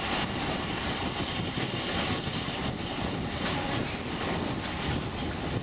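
Narrow-gauge former sugar-cane train running along the track, heard from an open-air car: a steady rumble from the wheels and cars with scattered sharp clicks.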